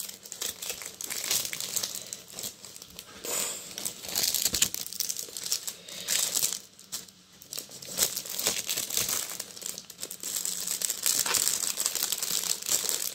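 Clear plastic packaging crinkling and rustling as a rolled diamond-painting canvas is handled in its bag: irregular rustles, with a brief lull about seven seconds in.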